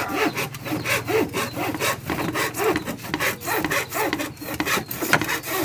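Hacksaw cutting a sheet of 3 mm mahogany (caobilla) plywood by hand, with quick, even back-and-forth strokes at about three a second.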